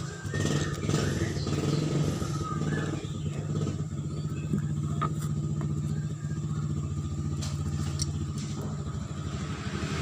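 A vehicle engine running steadily, with a few light metallic clicks of a screwdriver against a starter-motor housing.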